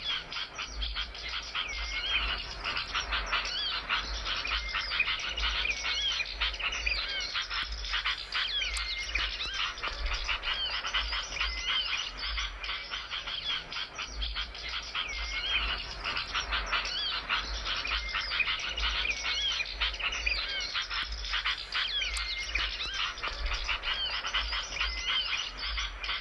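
Small songbirds chirping and trilling in a dense, unbroken stream of rapid notes with short whistled slurs, a recorded lure or tutor song for wild-bird trapping and song training.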